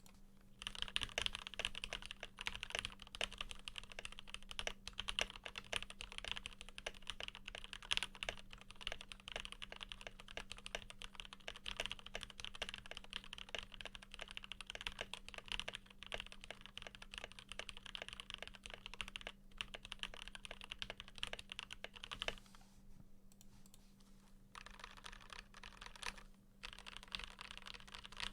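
Fast, continuous typing on a Keychron K8 mechanical keyboard with lubed Gateron PRO Yellow linear switches and stock OEM-profile keycaps: a dense run of key clacks. The typing breaks off for about two seconds near the three-quarter mark, then picks up again.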